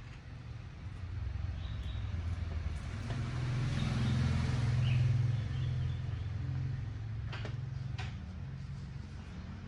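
A motor vehicle passing by: a low engine rumble swells to its loudest about halfway through and then fades. Two sharp clicks come near the end.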